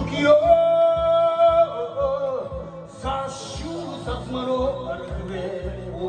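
Man singing karaoke into a handheld microphone over a backing track with a steady beat, holding one long note near the start.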